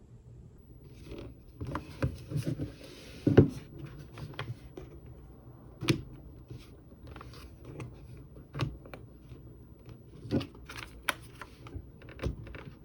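Handling sounds from unboxing a mechanical keyboard: scattered knocks and plastic clicks, with a short rustle of packaging and one louder knock a little over three seconds in.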